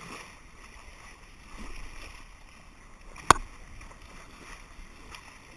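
Water rushing and splashing along the bow of a moving boat. A single sharp click a little over three seconds in.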